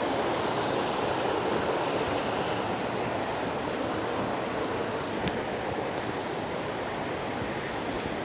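Steady rush of fast-flowing, rain-swollen water, described as booming, with a single small click about five seconds in.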